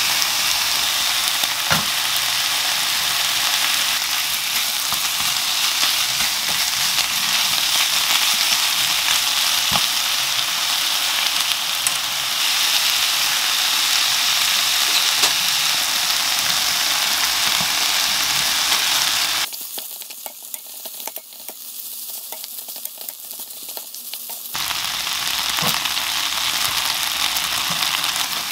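Sliced pork and onion sizzling in a nonstick frying pan as they are stir-fried with a wooden spatula, with occasional taps and scrapes of the spatula on the pan. About two-thirds through the sizzle drops suddenly to a much quieter level for about five seconds, then comes back.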